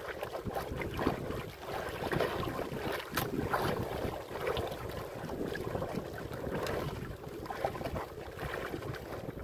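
Wind buffeting the microphone over a choppy sea, with water splashing against the hull of a small wooden outrigger boat.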